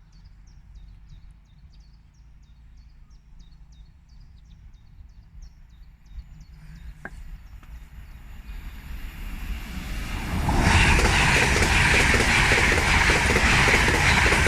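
A bird chirps repeatedly, about three short calls a second, over quiet surroundings. From about seven seconds in, an LNER express train is heard approaching, the noise rising until it passes close by loudly from about ten seconds in.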